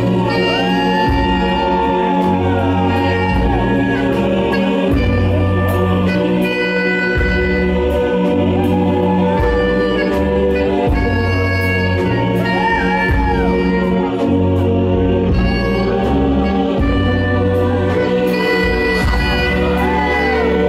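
Live band music: saxophone, electric guitar and keyboard over a steady bass line that changes note about every second.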